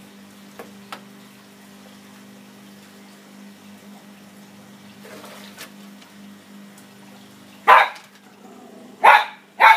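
A terrier barks three times near the end: once, then twice in quick succession, at fish it has noticed in the pond. A low steady hum runs underneath.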